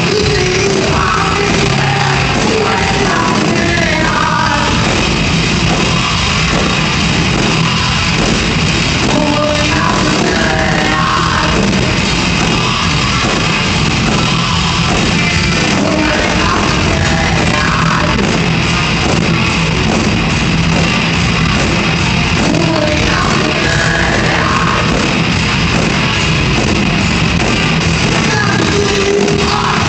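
Heavy metal band playing live: distorted guitars, drums and sung vocals, loud and steady throughout.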